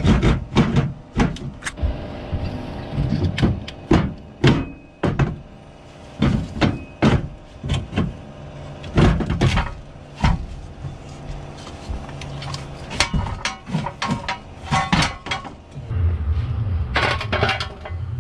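Irregular metal clanks and knocks as a school bus's factory pedal assembly is wrenched and worked loose from its mounting under the dash. A low rumble comes in near the end.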